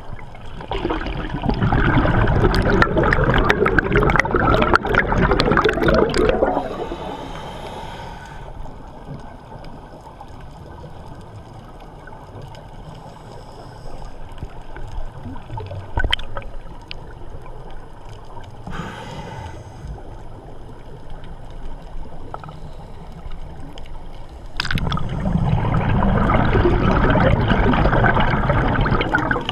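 Scuba regulator breathing underwater: two long spells of exhaled bubbles bubbling and gurgling close to the microphone, with short hissing inhales through the regulator between them.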